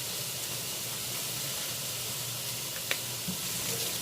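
Sliced bell peppers and onions sautéing in oil in a pan, sizzling steadily, with a single sharp click about three seconds in.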